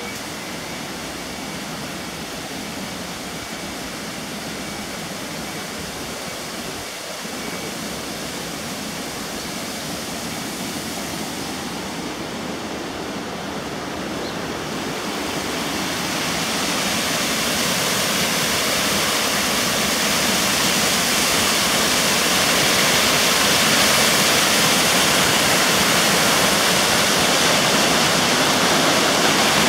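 Rushing water of a shallow, rocky mountain stream flowing over stones. It is a steady noise that grows louder from about halfway through and then stays loud.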